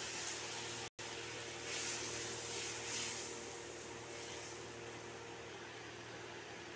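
Thin mustard-and-poppy-seed masala gravy simmering and sizzling in a kadhai just after water has been added, stirred with a spatula, over a steady low hum. The sound cuts out for an instant about a second in.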